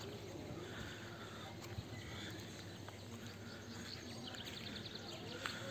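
Quiet outdoor evening ambience: a faint steady hiss with scattered faint bird chirps.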